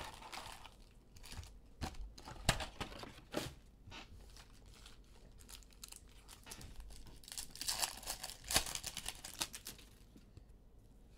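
Topps Chrome baseball card packs being handled and torn open: scattered light taps and rustles, with a longer stretch of wrapper crinkling and tearing about eight seconds in.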